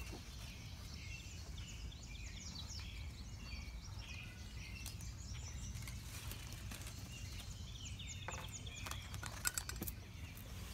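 Wild birds chirping and singing, many short calls and trills, over a low steady rumble of outdoor noise, with a few sharp clicks near the end.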